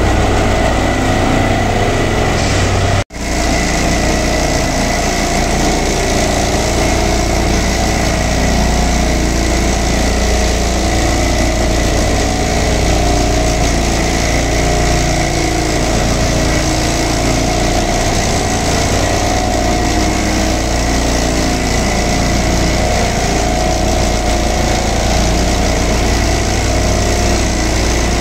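Dynamic track stabilizer's diesel engine and machinery running steadily, with a thin, steady high whine over the engine noise. The sound cuts out for an instant about three seconds in.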